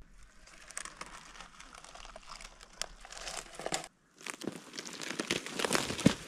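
Dry leaf litter, bark and rotten wood crunching and crackling as they are dug through and pulled apart by hand, broken by a short gap about four seconds in.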